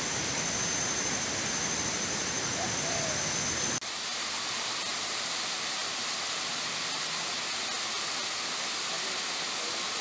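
Steady rushing hiss of water cascading down a tiered rock waterfall, from a cut about four seconds in. Before it, an outdoor hiss with a thin, steady high whine.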